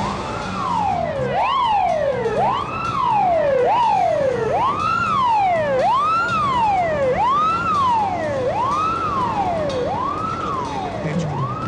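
Emergency-vehicle siren wailing: its pitch climbs quickly and then sinks more slowly, over and over, about once every second and a half.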